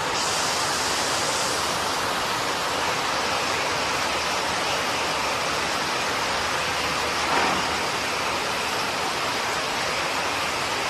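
Floodwater rushing in a steady, loud torrent.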